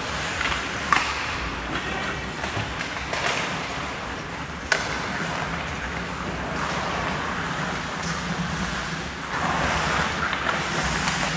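Ice hockey play: skate blades scraping and carving on the ice, with two sharp clacks of stick on puck, one about a second in and one near the middle, over the steady hum of the rink. The scraping swells louder near the end.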